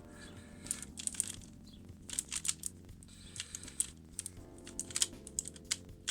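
Plastic clicking and clacking of a QiYi MS magnetic pyraminx being turned fast during a speedsolve, in irregular quick flurries of clicks.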